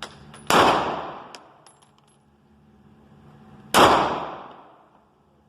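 Two gunshots about three seconds apart, each trailing off in a long echo, with a few light metallic tinks after the first.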